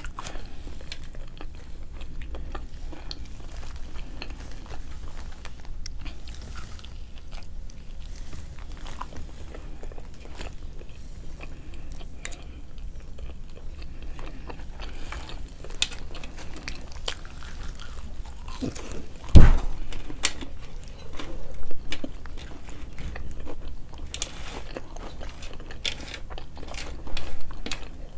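Close-miked chewing and biting of fast food, with many small mouth clicks. A single loud low thump about two-thirds of the way through.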